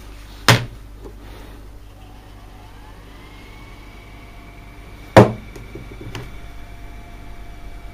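Aiwa TV-VCR combo fast-forwarding a VHS tape: a whine rises in pitch over about a second as the tape spools up, then holds steady. Two loud clunks, one about half a second in and another around five seconds in, stand out over a low steady hum.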